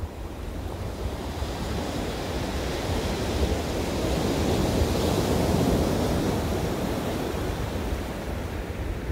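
Sea waves breaking and washing up a pebble beach; the surf swells to its loudest around the middle and then eases off.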